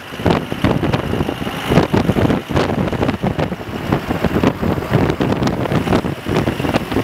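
Wind rushing past an open-top classic convertible at road speed, buffeting the microphone in irregular gusts, over the car's running and road noise.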